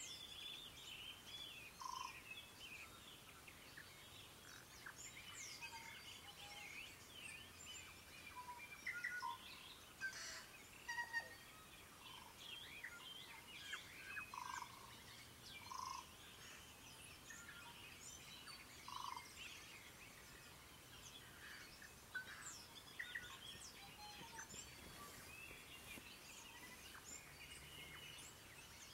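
Morning chorus of many songbirds: dense, overlapping chirps, trills and whistles, with a few short, lower pure notes standing out now and then.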